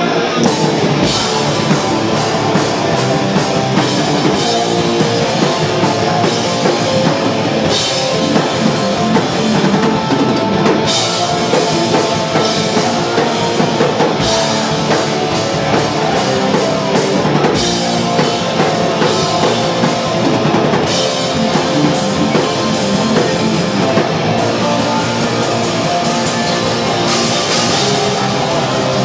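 Hardcore punk band playing live at full volume: distorted electric guitars over a driving drum kit, with crash cymbals hit again and again through the song.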